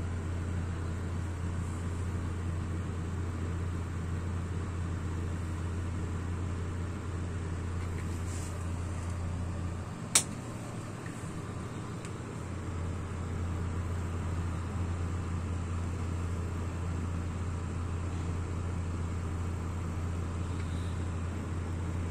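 Model 2608 Chinese kerosene stove burning with a steady low hum and a faint hiss. One sharp click about ten seconds in, after which the hum dips for a couple of seconds and then comes back.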